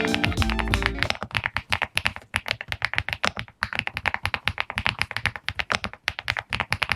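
Fast typing on a mechanical keyboard fitted with PBT keycaps: a rapid, uneven stream of key clicks and clacks. Guitar music fades out about a second in, before the typing takes over.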